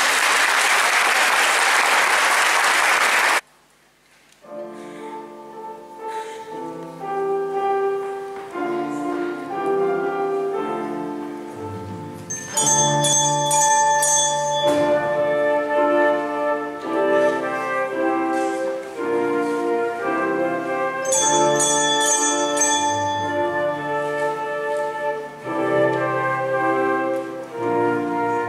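Audience applause that stops about three and a half seconds in, then after a short pause a song introduction begins: held melody notes over chords from piano and band, with a high jingling rhythm joining about twelve seconds in.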